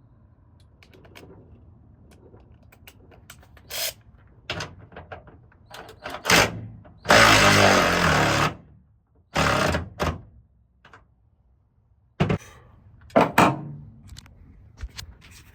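A handheld power tool runs in one loud burst of about a second and a half about halfway through, then a shorter burst, among sharp knocks and clanks of tools on the metal mounting hardware of a tailgate assist shock.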